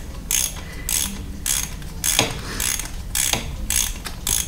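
Hand ratchet clicking through repeated short strokes, about two a second, as a bolt is turned in at the front of the engine.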